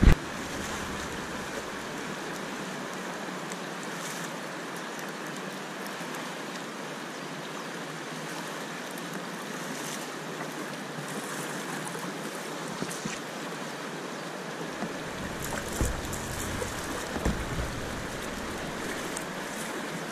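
Steady rush of river water flowing past a kayak, with a few soft knocks or splashes about three-quarters of the way through.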